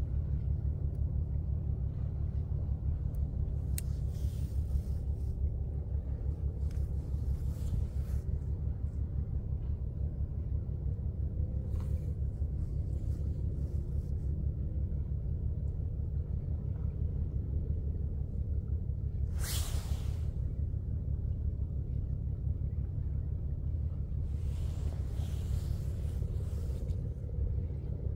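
Low, steady rumble of a large container ship's engines as it passes close by, with a fine, even pulsing. A few brief hissing swishes come over it, the loudest about two-thirds of the way through.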